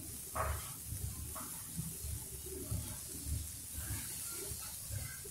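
Butter melting and sizzling on a hot iron tawa, foaming as a butter knife pushes it around, with a brief scrape of the knife on the pan about half a second in. Low, repeated thuds run underneath.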